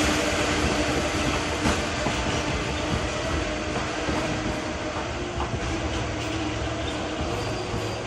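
Electric commuter train on the JR Takasaki Line rolling along the track, a steady rumble with a few clicks of the wheels over the rails, growing gradually quieter.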